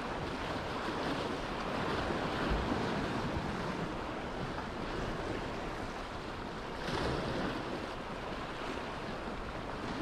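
Sea waves washing and breaking against shoreline rocks, a steady rush with wind on the microphone; one wave surges louder about seven seconds in.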